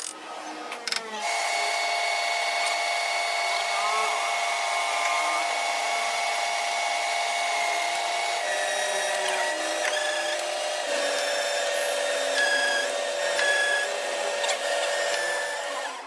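Power tool machining metal, a steady whine that starts about a second in and drops slightly in pitch about halfway through, with short higher squeals of the cut in the second half before it stops.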